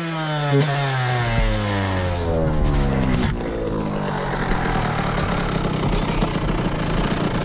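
Two-stroke engine of a fallen Yamaha YZ125 dirt bike running on, its pitch sliding slowly down over the first three seconds, then running on with a rougher, noisier sound. A few knocks and clatters come as the bike is handled.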